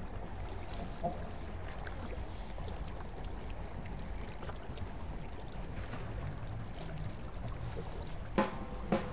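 Steady low rumbling noise with a faint watery wash. Near the end a few sharp drum hits come in as music starts.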